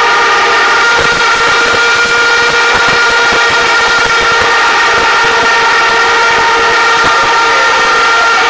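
Protest crowd blowing horns and whistles together: many held tones at different pitches sounding at once, loud and unbroken.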